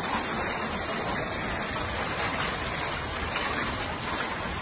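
Hailstorm: hail and rain falling hard and steadily, a dense hiss of countless impacts.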